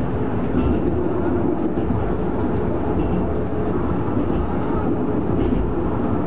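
Funicular railway car running down its track, heard from inside the car: a steady rumble of wheels on rails with a faint steady hum.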